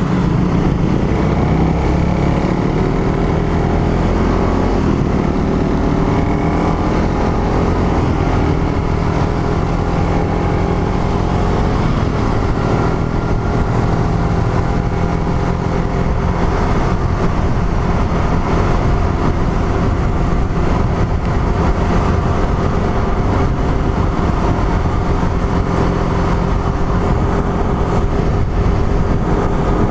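Suzuki Raider R150 Fi's single-cylinder engine from onboard, riding at low speed, its pitch rising as it pulls up through the revs near the start and again about halfway, then holding steady. It is kept under about 6000 rpm, the engine still being broken in.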